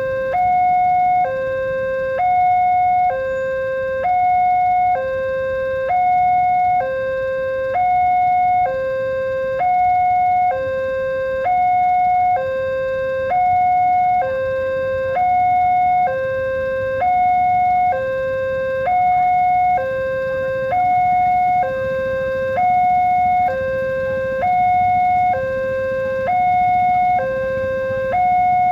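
Railway level-crossing warning alarm sounding steadily: an electronic two-tone signal alternating between a higher and a lower tone about once a second, the higher tone the louder.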